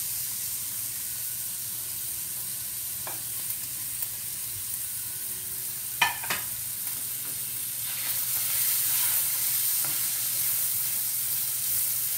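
Sliced onion and garlic sizzling in hot oil in a stainless-steel skillet, stirred with a wooden spoon. A few sharp clicks come through, the loudest pair about six seconds in, and the sizzle grows louder from about eight seconds.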